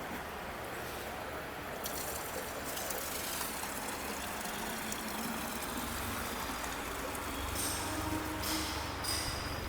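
Transformer oil being poured into a locomotive axle box over its roller bearings: a steady pouring and splashing of liquid.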